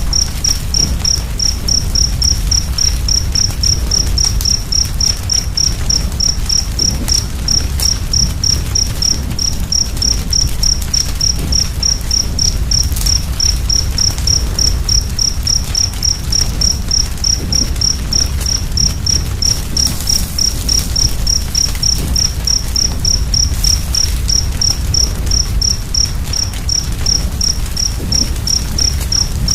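A cricket chirping steadily in an even high-pitched pulse, about two and a half chirps a second. Beneath it runs a low rumbling fire with a few scattered crackles.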